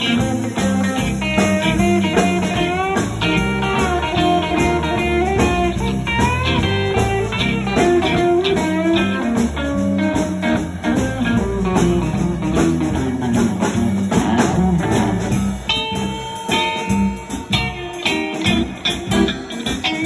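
Live blues band playing: an electric guitar plays a lead line with bent, sliding notes over bass and drums, holding a few long notes near the end.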